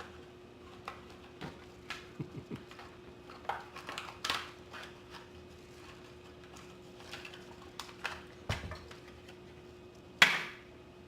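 Hot Wheels blister-card packaging being handled and opened: scattered plastic and cardboard crackles and clicks, with one sharp, louder snap about ten seconds in. A faint steady hum runs underneath.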